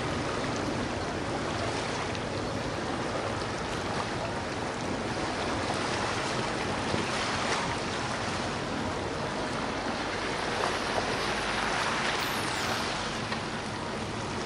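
Steady rush of water churned up in a cruising motorboat's wake.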